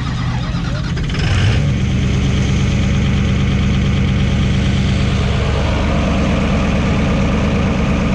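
Diesel engine of a pulling truck idling with a steady, rhythmic beat, swelling briefly about a second in.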